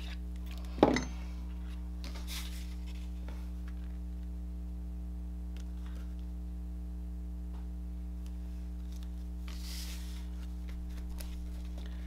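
Steady low electrical hum, with one sharp knock on the craft table about a second in and faint rustling of cardstock being handled later on.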